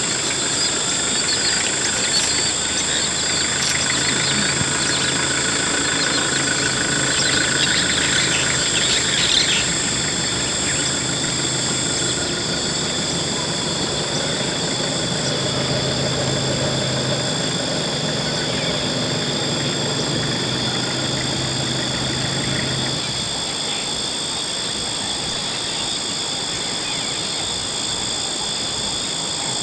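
Vehicle engine idling with a steady low hum that stops about two-thirds of the way through, under a constant high-pitched whine.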